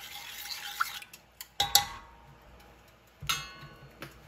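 Metal measuring spoon stirring liquid in a stainless steel saucepan with a light scraping, then two sharp metallic clinks that ring briefly, about a second and a half apart, the first the louder.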